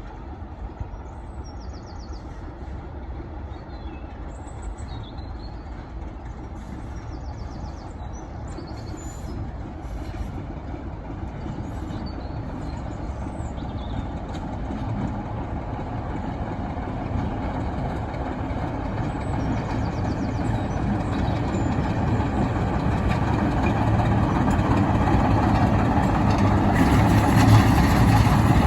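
Train approaching, its engine noise growing steadily louder.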